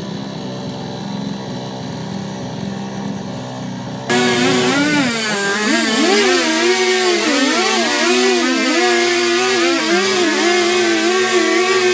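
Chainsaw idling, then opened up to full throttle about four seconds in, its pitch wavering up and down as it cuts into a log.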